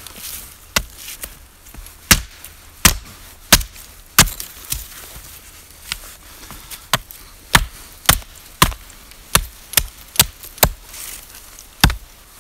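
Small axe chopping a thin branch: a run of about fifteen sharp blade strikes into wood, roughly one every two-thirds of a second, with a short pause near the middle.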